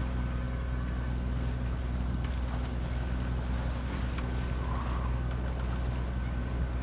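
Sailing yacht's engine running steadily while motoring in light wind, a constant low drone with wind and water hiss over it.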